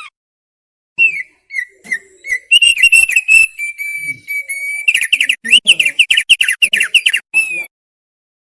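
Thick-billed heleia (opior paruh tebal) singing one loud whistled phrase. It opens with separate clear notes, runs into a brisk, sharp, quickly repeated series about halfway through, and stops suddenly near the end.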